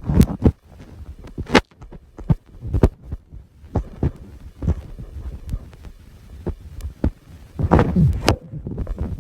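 Irregular taps, clicks and low thumps close to the microphone, at uneven spacing, with a louder cluster of thumps near the end: handling noise.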